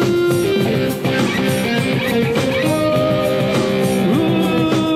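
Live band playing an instrumental interlude: a held, stepping lead melody over drums and keyboards, with no singing.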